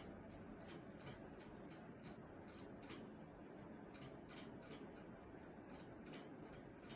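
Cat lapping water: faint, irregular clicks of its tongue at the water's surface, roughly two a second, over a low hiss.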